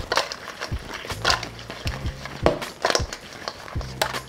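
Fried chicken tenders tossed in a stainless steel bowl of sticky honey sriracha glaze: irregular wet slaps and knocks as the pieces land, over background music.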